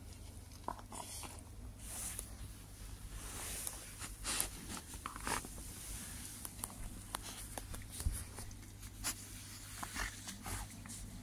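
Bedding rustling and scratching close to the microphone as dogs shift about on the bed, with many scattered sharp clicks over a steady low hum.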